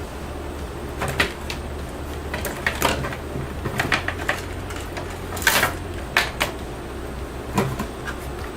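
Scattered light clicks and short rubbing sounds from hands working on an opened laptop, over a steady low hum. One longer, louder rub comes about five and a half seconds in.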